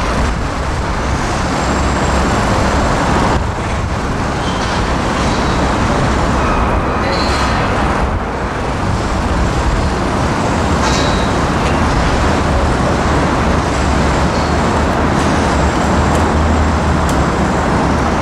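Steady outdoor background noise: a low rumble with a broad hiss, with a few faint clicks.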